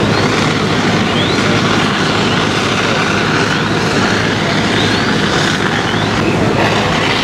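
Steady noise of firefighting: a fire engine running at the scene and hose streams spraying water, with a low engine hum underneath a constant rushing hiss.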